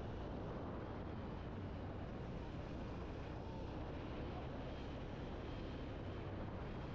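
Honda Hornet 2.0 motorcycle's single-cylinder engine running steadily while riding at road speed, with wind and road noise on the microphone.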